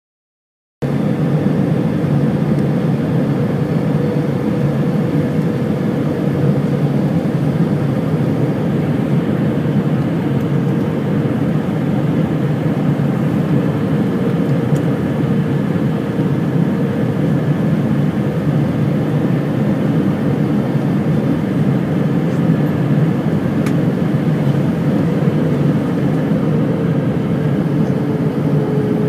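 Airliner cabin noise: the steady rush of jet engines and airflow, with a held engine tone that drops slightly near the end.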